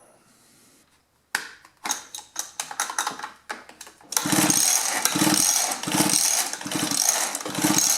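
Scattered clicks, then the recoil starter cord of a Mantis mini tiller's two-stroke engine pulled about five times in a row, cranking the engine over with its spark plug out.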